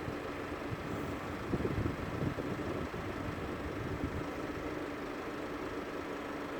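A vehicle engine idling steadily, a constant low hum, with a few louder knocks or rumbles about one and a half to two and a half seconds in.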